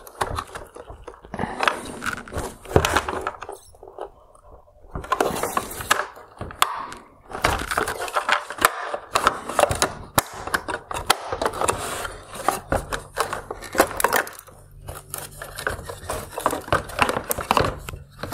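Plastic parts of a Mercedes-Benz S-Class LED headlight being worked by hand: a run of sharp clicks, cracks and scraping as the inner reflector is popped off its mount and pulled out of the housing.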